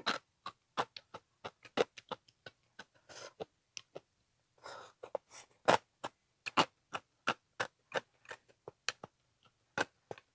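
Close-miked chewing of crunchy turmeric-braised frog: a fast, irregular run of sharp crunching clicks, with a couple of longer, softer smacking sounds about three and five seconds in.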